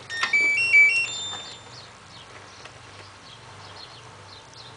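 LG F1222TD washing machine's control panel playing its power-on chime: a click, then a short tune of electronic beeps ending on a longer held note, about a second and a half in all. A faint low hum follows.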